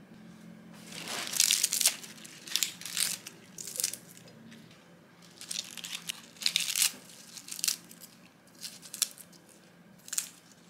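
Iceberg lettuce leaves torn apart by hand, a run of about eight short crackling tears a second or so apart, each a brief crunch of the crisp leaves.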